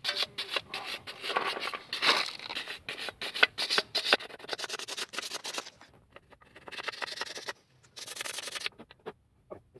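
Hand wire brush scrubbing the pad guides of a rear brake caliper carrier with rapid back-and-forth strokes, cleaning the abutments for new pads. There is one long spell of brushing, then two short bursts after brief pauses, and it stops about a second before the end.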